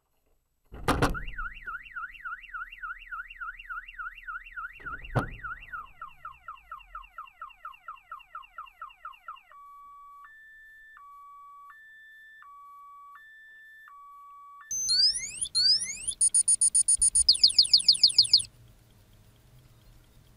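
A sudden thump, then a car alarm going off. It cycles through its siren patterns: a fast rising-and-falling warble, a run of falling chirps, a two-tone alternating beep, then fast high whoops, before stopping about eighteen seconds in. A second thump comes about five seconds in.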